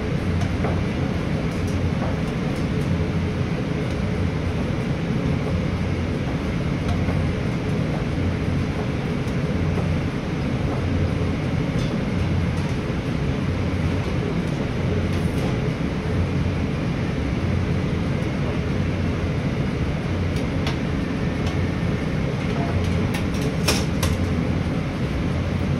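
Steady drone of a commercial kitchen's ventilation and equipment, an even rushing noise with a low hum, broken by a few faint clinks of utensils on metal near the end.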